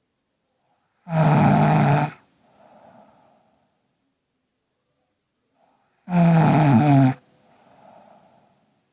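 A girl snoring: two loud snores about five seconds apart, each lasting about a second and followed by a quieter breath.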